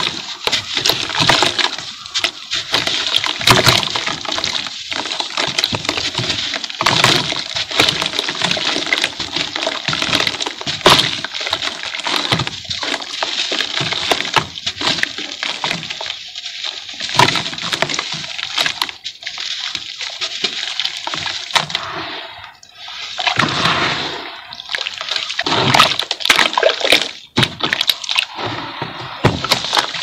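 Dry sand-and-cement chunks crushed and crumbled by hand into a tub of water: continuous gritty crackling with many sharp snaps, along with splashing and sloshing as pieces and powder drop into the water.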